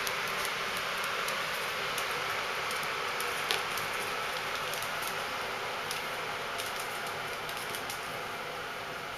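Steady hiss with scattered light clicks and taps, and one sharper tap about three and a half seconds in.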